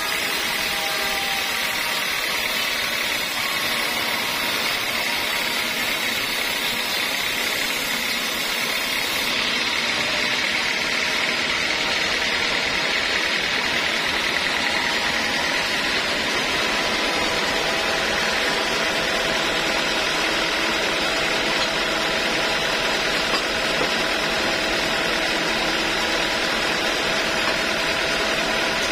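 Band sawmill running steadily, its blade in a teak slab, with a high hiss that stops about nine seconds in.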